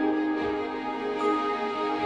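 Background music of slow, held chords, with a new note coming in about a second in.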